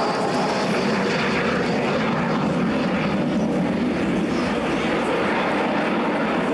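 Avro Vulcan bomber flying past, the steady noise of its four Rolls-Royce Olympus turbojets.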